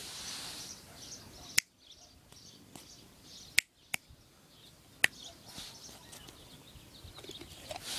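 Four sharp clicks spread over a few seconds, two of them close together: a stone knocking against a dog's teeth as it mouths it.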